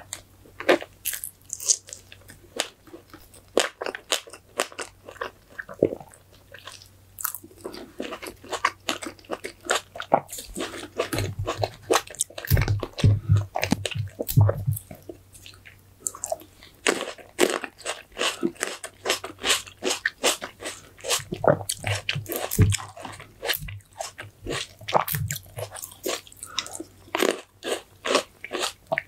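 Close-miked eating: a person biting and chewing crisp food, a dense stream of sharp crunchy crackles, with a few deeper thumps in the middle stretch.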